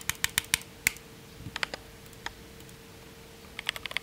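Typing on a Glorious GMMK Pro mechanical keyboard with its stock, unlubed Glorious Panda tactile switches. A quick run of keystrokes comes first, then a few scattered presses, then another burst near the end.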